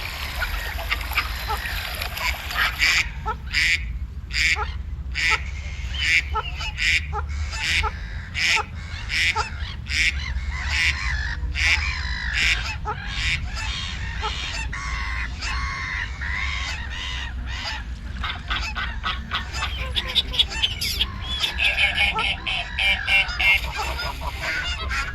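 A flock of geese honking: many short calls, one after another and overlapping, with no let-up, over a steady low rumble.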